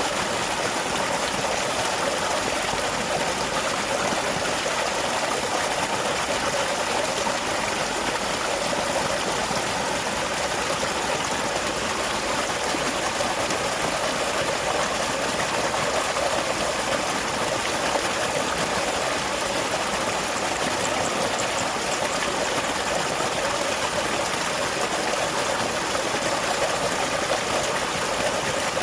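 Small waterfall with water pouring and splashing in a steady, unbroken rush.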